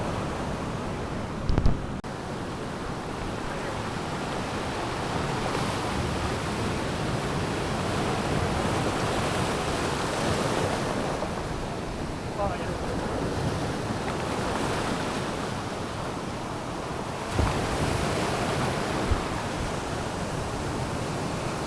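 Ocean surf breaking and washing on the beach in a steady rushing wash that swells and eases, with wind buffeting the microphone and a couple of brief knocks.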